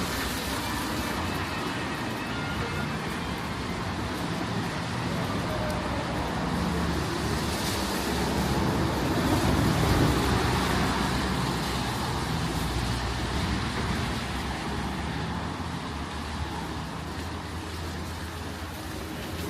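City street traffic: steady road noise of passing cars, swelling louder about halfway through as a vehicle goes by.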